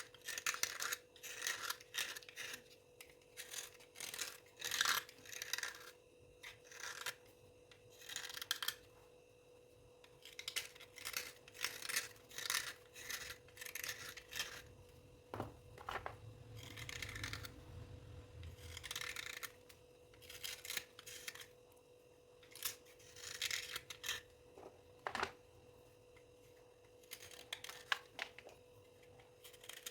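Dry scraping, many short quick strokes in irregular runs with brief pauses, and a couple of sharp clicks; a faint steady hum sits underneath.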